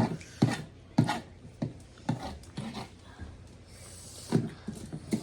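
Close-up eating noises: short mouth sounds from chewing and eating, about one every half second for the first three seconds, then two more near the end.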